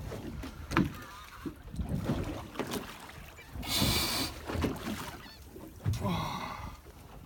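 Water slapping and sloshing against a small boat's hull with wind on the microphone, broken by a short, loud raspy buzz about four seconds in and a fainter one about six seconds in.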